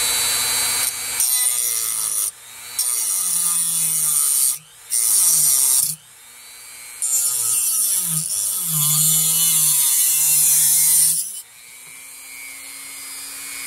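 Dremel rotary tool with a cut-off wheel cutting the side skirts off a toy train car's frame, in several spurts. Under load the motor's whine drops and wavers beneath a loud grinding hiss. Between cuts, and for the last couple of seconds, it spins free with a steadier, higher whine.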